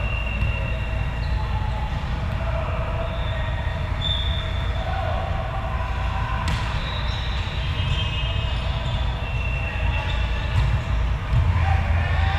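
Indoor volleyball gym: sneakers squeaking on the court floor in short high squeaks and volleyballs being struck and bouncing, with one sharp smack about six and a half seconds in, over the steady low rumble of a big hall.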